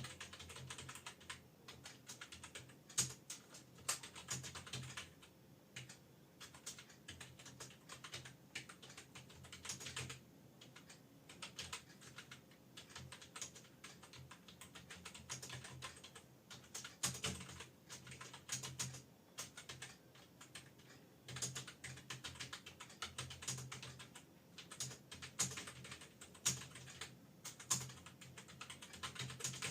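Fast continuous typing on an external computer keyboard: a steady patter of key clicks with short pauses, and an occasional louder keystroke that sounds like the space bar.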